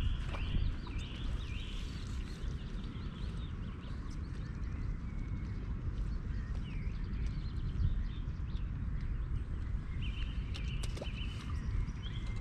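Outdoor ambience by a fishing lake: a steady low rumble of wind on the microphone, with birds chirping, a quickly repeated chirp in the first couple of seconds.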